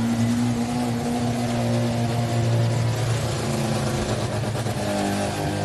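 Airbus A320's jet engines running at taxi power as it rolls close past, a steady low drone.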